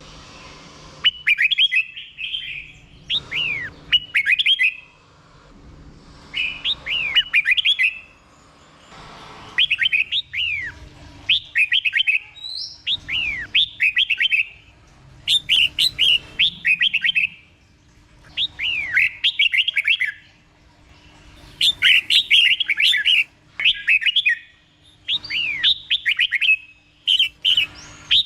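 Red-whiskered bulbul singing: short, bright phrases of quick down-slurred whistled notes, repeated every second or two with brief pauses between them. This is the doubled-phrase ('beun') song style kept for training cage birds.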